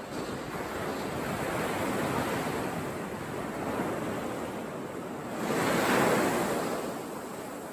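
Sea surf washing on the shore with wind on the microphone, a wave swelling loudest about two thirds of the way through and then easing off.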